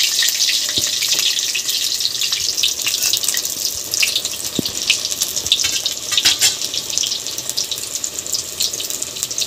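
Whole masala-stuffed brinjals shallow-frying in hot oil in a kadhai: a steady sizzle with frequent small crackles and pops.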